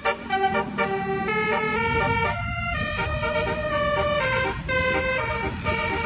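Basuri telolet horn on a tour bus, a 24-trumpet bank of air horns, playing a melody. Its notes step from pitch to pitch several times a second, with several trumpets sounding together as chords, over a low rumble.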